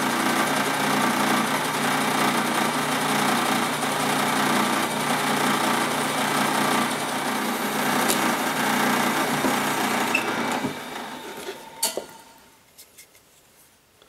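Drill press running with a 5/8-inch bit boring through-holes in a maple blank: a steady motor hum under the noise of the bit cutting wood. It stops after about ten and a half seconds. A sharp knock comes near twelve seconds, then a few light clicks.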